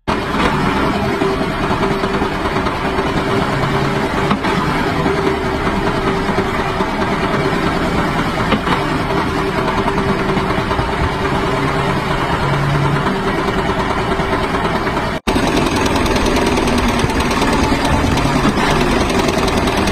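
Tractor engine running steadily under the rear-mounted flail mower, with a steady hum through the engine noise. The sound drops out for an instant about 15 seconds in, then carries on.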